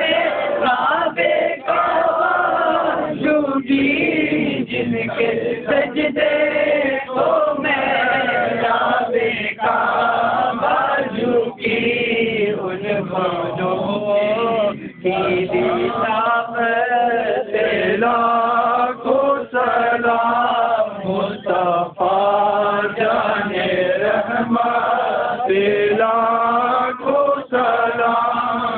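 A group of men chanting a devotional Urdu salam together, the voices carrying a wavering sung melody without pause.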